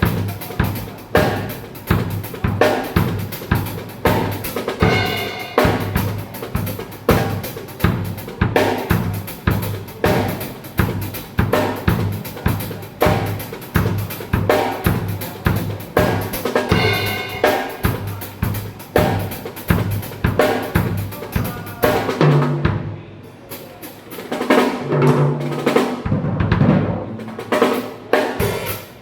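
Pearl Roadshow acoustic drum kit played in a steady groove: bass drum, snare and cymbals. About 22 seconds in the cymbals drop out for a few seconds of lower tom hits, and the cymbals come back in near the end.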